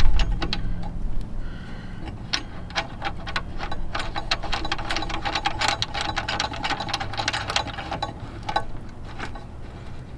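A hand socket ratchet clicking in quick runs of ticks for several seconds as nuts are run onto the mounting bolts, with scattered single clicks before and after.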